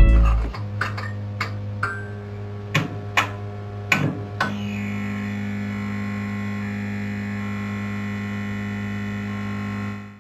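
A music track ends just after the start and gives way to a logo sound effect. A low synthesizer drone with a steady hum is struck by about seven sharp hits over the first four and a half seconds, then swells into a held chord that cuts off near the end.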